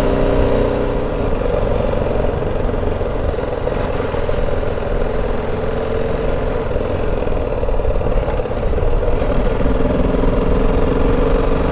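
Motorcycle engine running steadily as the bike rides slowly along, its note staying even.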